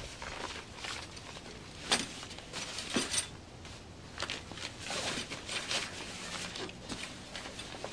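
Folding bike trailer being unfolded by hand: its fabric body rustling and its frame tubes clicking and knocking, with the sharpest knocks about two and three seconds in.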